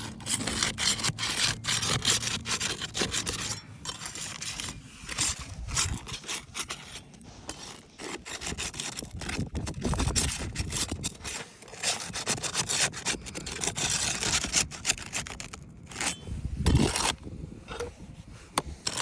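Thin-blade shingle scraper scraping under asphalt roof shingles to loosen them, in quick, irregular strokes with a few short pauses.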